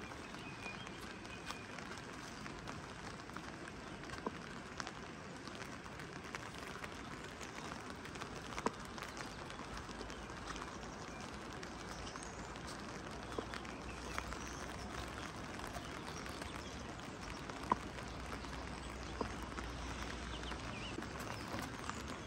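Steady rain falling, with a few scattered sharp drips tapping at irregular moments.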